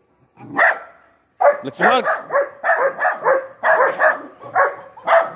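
Indian Spitz barking in a run of high-pitched yaps: one bark about half a second in, then a rapid string of several barks a second from about one and a half seconds in.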